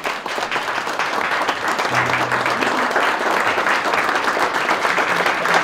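Audience of wedding guests applauding, swelling over the first second and then holding steady.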